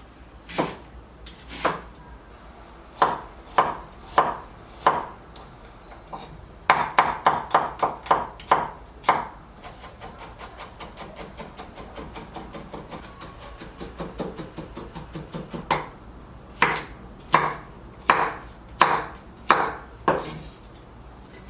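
Kitchen knife chopping on a cutting board. Single firm chops come about a second apart, then a quicker run of chops, then a fast, lighter run through the middle, and slower firm chops again near the end.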